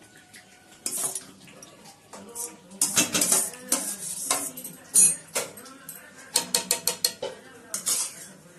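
A steel spoon clinks and scrapes against a cooking pan as chicken curry is spooned over rice to layer the biryani. It is a run of uneven knocks and scrapes, with the loudest clink about five seconds in.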